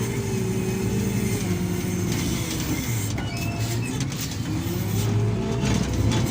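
Heavy diesel engines of an excavator and wheel loader running under working load. The engine pitch sags and rises as the machines take load, climbing about four seconds in.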